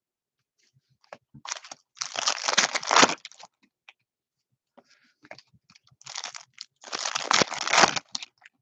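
Trading cards sliding against each other as they are flipped through by hand, together with a foil card-pack wrapper crinkling. The rustling comes in two main bursts, about two seconds in and again around seven seconds, with light clicks between.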